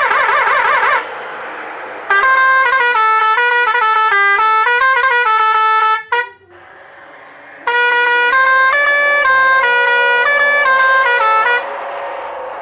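Bus musical horn playing a tune of stepped notes, in two phrases with a short break between them. It opens with a rapid warbling tone for about a second.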